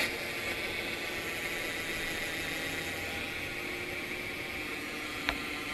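BMX rear wheel spinning freely on its freshly regreased hub, a steady even whir. One faint click near the end.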